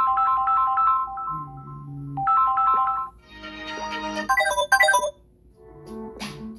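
Electronic ringtone-style tune of short beeping notes: a quick three-note phrase, a pair of lower tones, the phrase again, then a busier run of tones before it quietens to a few low notes near the end.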